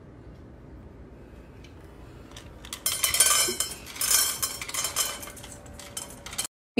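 Dry kibble clattering and rattling into a stainless steel bowl as an automatic pet feeder dispenses. It starts about three seconds in and runs for about three and a half seconds.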